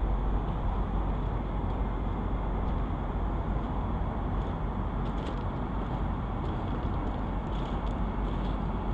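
Steady low rumble of wind buffeting the microphone of a camera riding on a crane-hoisted load, with a few faint high ticks in the middle and later on.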